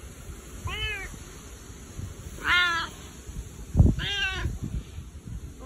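A cat meowing three times in a husky voice, each meow arching up and falling away: affectionate, attention-seeking meows. A short thump comes just before the third meow.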